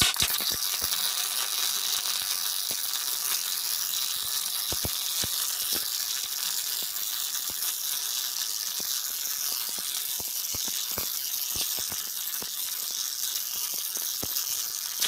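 Wire-feed welder arc crackling and sizzling steadily as a weld bead is run on steel plate, with frequent sharp spatter pops; it starts abruptly at the trigger pull and cuts off abruptly at the end.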